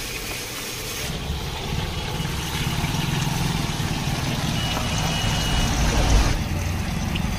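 Steady low engine rumble, like idling vehicles, with a single high beep lasting about a second a little past halfway.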